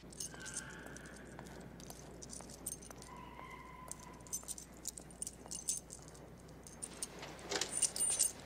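Keys jangling with scattered light clicks, busier and louder near the end as a car door is reached and opened.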